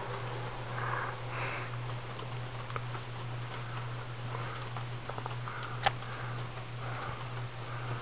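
Ceiling fan running: a low steady hum with soft, recurring whooshes of air from the spinning blades. A single sharp click about six seconds in.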